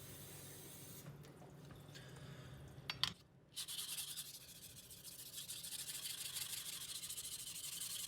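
Steel kitchen knife blade being stroked back and forth on a wet sharpening stone with its slurry, a steady gritty rasping grind that starts about three and a half seconds in, after a short knock.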